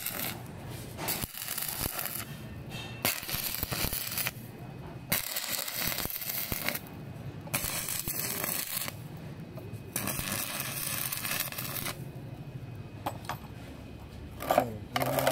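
Stick (arc) welding on mild-steel rod: the electrode arc crackles and sizzles in about six separate welds of one to two seconds each, with short pauses between them as the tacks joining the bent rod prongs to the ring are laid one by one. Near the end a short, louder sound slides in pitch.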